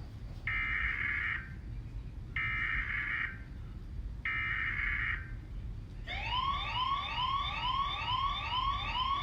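Emergency Alert System alarm: three one-second bursts of screechy data-header tones about a second apart, the EAS header sent three times, followed about six seconds in by a repeating rising whoop alarm tone, about two whoops a second.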